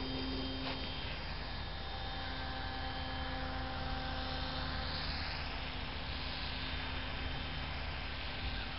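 Steady hum of the small motor of a 48-inch Nutball RC model plane as it takes off and flies, several constant tones over a low rumble.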